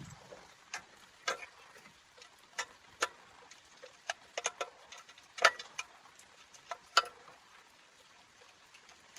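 A series of irregular light clicks and taps, about a dozen with no steady rhythm, the sharpest about five and a half and seven seconds in.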